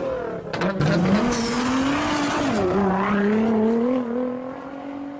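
Car engine revving: its pitch climbs, dips about two and a half seconds in, rises slowly again and fades out near the end.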